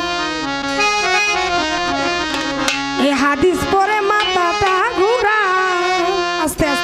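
A woman singing Baul folk song in long held notes that bend in pitch, with instruments and hand drums accompanying.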